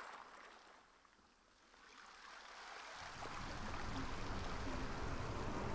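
Ambient sea water: a steady wash that fades down to its quietest about a second and a half in, then swells back, joined by a low rumble from about three seconds.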